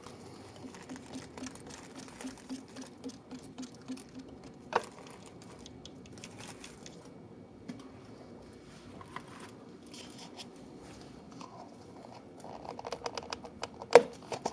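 Light clicks, taps and crinkles of a plastic lid being worked onto a paper coffee cup on a stone counter, with a sharp snap about a third of the way in. A quick run of clicks near the end closes on the loudest click.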